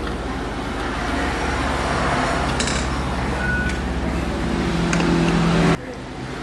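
Hot air rework station blowing steadily while desoldering a coil from a laptop motherboard, then switched off suddenly near the end.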